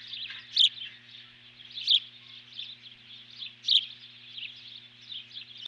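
Ospreys calling at the nest: a continuous series of high, sharp chirps, with three louder whistled calls spaced about one and a half seconds apart. A faint steady low hum lies underneath.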